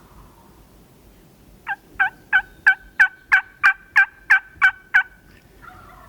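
A turkey call sounding a series of about ten loud, evenly spaced hen yelps, about three a second, calling to a gobbler that is coming in.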